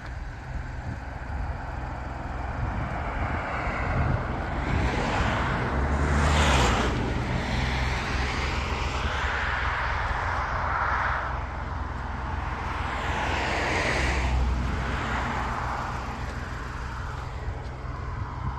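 Road traffic: several vehicles pass one after another, each rising and fading away, the loudest about six seconds in.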